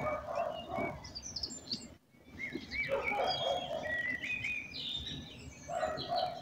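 Wild birds singing and chirping, many short high notes and quick glides overlapping, with a brief drop-out about two seconds in.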